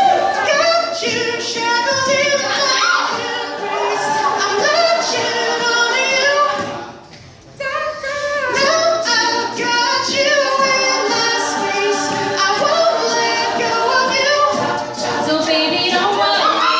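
A cappella group singing a pop arrangement in parts, backing voices under a lead. About seven seconds in the voices drop out briefly, then all come back in together.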